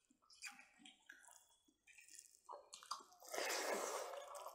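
Close-up wet eating sounds of smoked pork ribs being eaten by hand: soft chewing, squelching and lip smacks, then a louder noisy stretch of about a second starting a little past three seconds in.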